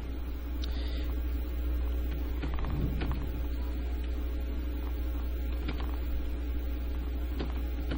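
Steady low mains hum on the recording, with a few faint scattered keyboard clicks as a command is typed.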